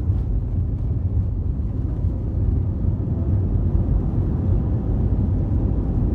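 Jet airliner engines giving a steady, deep rumble.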